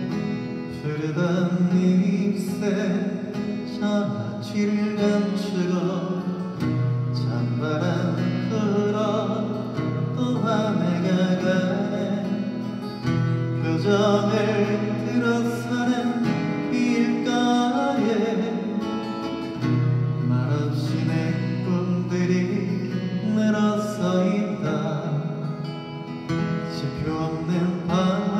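A man singing into a microphone while accompanying himself on an acoustic guitar.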